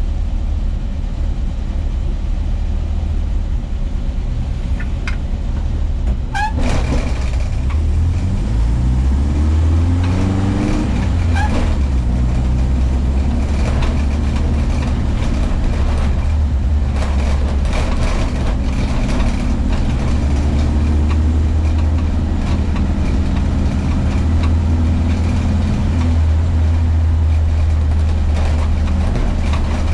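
Volkswagen Kombi van's engine running while driving. The engine note rises and drops a few times as it pulls up through the gears, then settles into a steady cruise.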